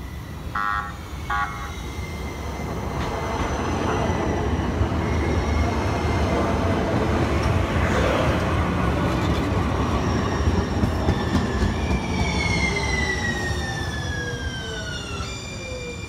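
San Diego Trolley light-rail train approaching and passing close by. There are two short horn toots near the start, then the rumble of wheels on rails builds to its loudest around the middle. Near the end the whine of its electric traction motors falls steadily in pitch as the train slows, and the sound changes abruptly just before the end.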